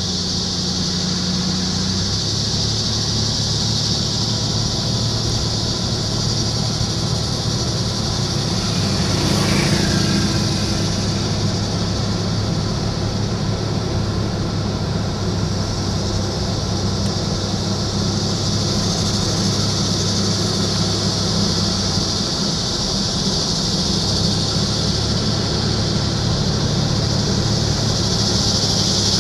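Cicadas buzzing in a loud, steady, high-pitched chorus, over a low steady hum.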